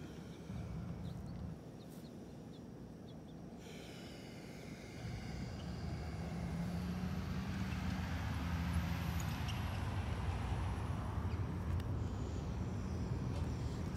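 A road vehicle's engine and tyre noise builds from about five seconds in and stays loud, a low hum with a rushing hiss over it. A few faint bird chirps come in the first seconds.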